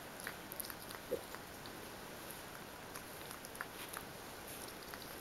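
A mini pig nosing and rooting about on carpet: faint scattered clicks and snuffling sounds, with one short pitched sound about a second in.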